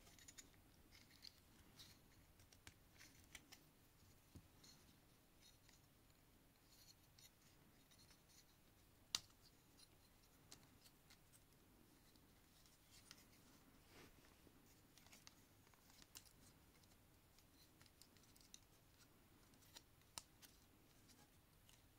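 Faint clicks, snaps and light rubbing of the plastic parts of a Transformers Legacy Skullgrin figure as its joints are swivelled and its pieces folded and pegged into place by hand. There is one sharper snap about nine seconds in and another near twenty seconds.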